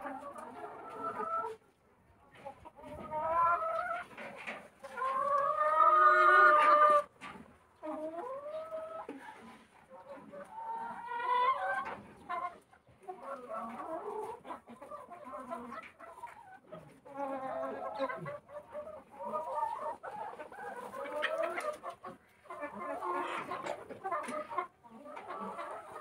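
Flock of chickens clucking and calling, with one long, loud call about five seconds in.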